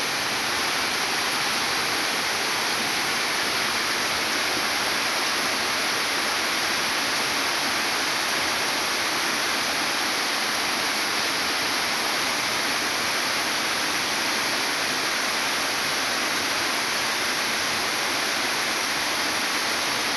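Heavy tropical rain falling in a steady downpour, an even hiss with no breaks.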